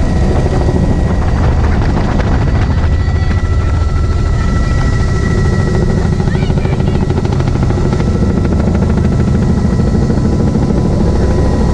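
Helicopter in flight, heard from the open-door cabin: a steady, loud rotor thrum with a fast pulsing beat, a steady high whine above it, and wind rushing past the open door.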